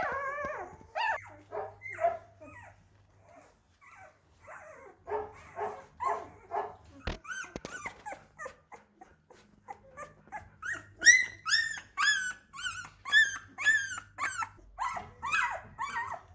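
A week-old golden retriever puppy whimpering in a string of short cries, which turn into louder, high-pitched squeals about ten seconds in.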